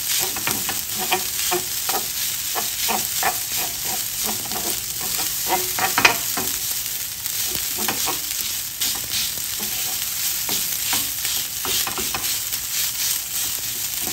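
Egg fried rice sizzling in hot oil in a non-stick frying pan while a wooden spatula stirs and scrapes it, with frequent short scrapes and taps against the pan and one louder knock about six seconds in. The rice is being tossed through the heat and oil to finish.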